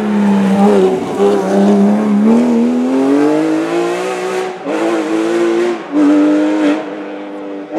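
Porsche 911 GT3 rally car's flat-six engine accelerating hard past, its pitch climbing steadily, then two quick upshifts about four and a half and six seconds in. The sound fades near the end as the car pulls away.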